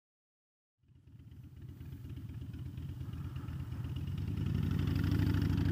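2009 Harley-Davidson Dyna Fat Bob's Twin Cam V-twin idling through Vance & Hines Short Shots exhaust, a low steady pulsing. It fades in from silence about a second in and grows gradually louder.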